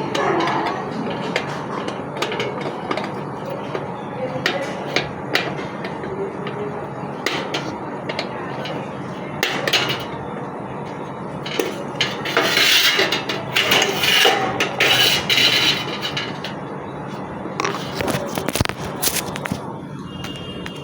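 Hard parts clinking and knocking as ceiling-fan pieces and packaging are handled, with a longer stretch of rustling around the middle.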